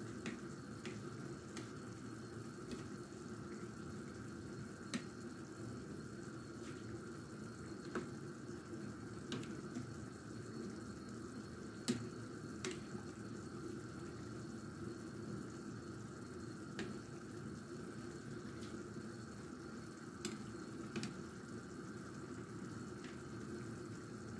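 Meat broth boiling in a large enamel pot, a steady bubbling hiss, while a metal spoon skims the foam off its surface, with a dozen or so light, irregular clinks of the spoon.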